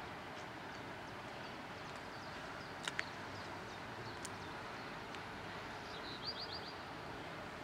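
Railway station ambience: a steady background hiss and hum, a couple of sharp metallic clicks about three seconds in, and small bird chirps, with a quick run of four high chirps about six seconds in.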